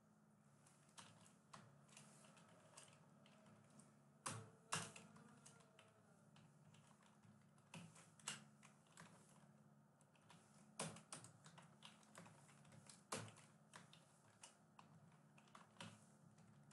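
Faint computer keyboard typing: irregular short runs of keystrokes with pauses between them.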